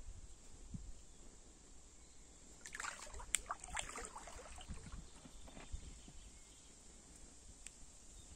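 Brief splashing and dribbling of river water around a floating inflatable toy, with a few sharp clicks, about three seconds in, over a steady faint high chirring of insects.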